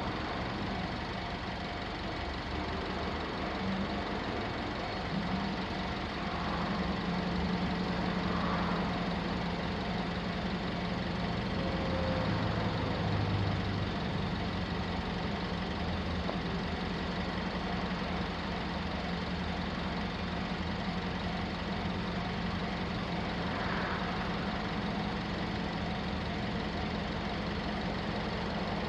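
A large engine idling steadily, a low, even hum with traffic noise around it.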